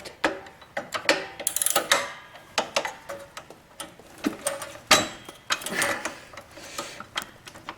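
Steel wrenches clinking, knocking and scraping on the friction-wheel shaft and nut of a Toro 521 snowblower's traction drive while a very tight nut is worked. Irregular metallic clicks and knocks.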